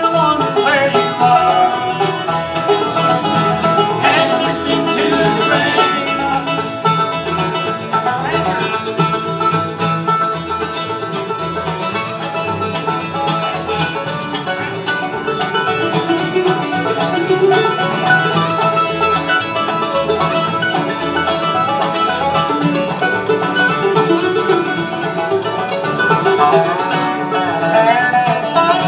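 A live bluegrass band playing, with banjo, acoustic guitars, fiddle and upright bass, the upright bass keeping a steady pulse underneath.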